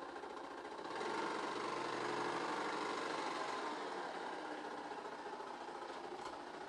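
Honda Super Cub's single-cylinder four-stroke engine running with a fast, steady mechanical ticking clatter, louder for a few seconds about a second in. It is the abnormal engine noise that persists after the cam chain, guide roller and tensioner roller were replaced.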